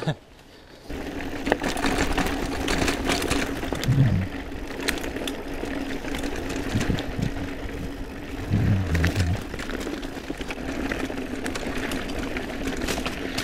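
Mountain bike coasting down dirt singletrack: a steady buzz like a freehub ratcheting, over tyre rolling noise and the rattle of trail chatter, with a few short low thuds about four and nine seconds in.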